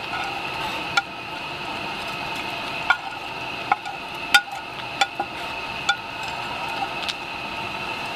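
A metal utensil scraping and clicking against a ceramic plate as cooked chicken is pushed off it into a stainless steel pot, about ten sharp clicks at uneven intervals. Under them runs a steady hiss.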